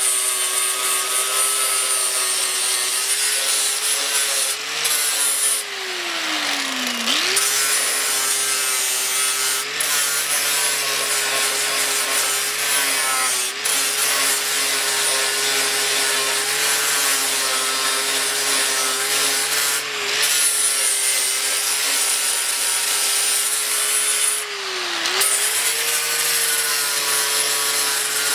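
Electric angle grinder with a grinding disc dressing down weld seams on a steel truck tailgate: a steady high-pitched motor whine over the scrape of the disc on metal. The motor's pitch briefly sags and recovers about seven seconds in, and again, less deeply, near the end.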